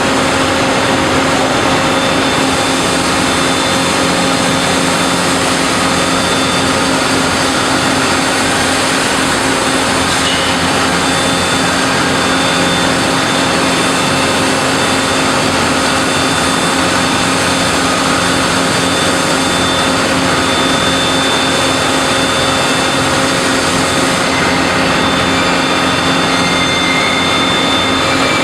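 Steady roar of leaf-spring factory machinery, running at an even level with a constant hum of several steady tones.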